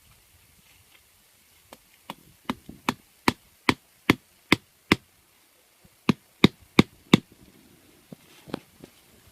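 Repeated sharp chopping knocks, as of a blade or tool striking wood. They come about two and a half a second: a run of about nine, a pause of about a second, then four more.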